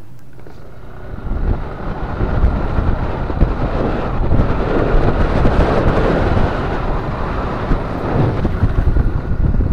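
Wind buffeting the microphone of a moving vehicle, over a low, uneven rumble, starting up about a second in.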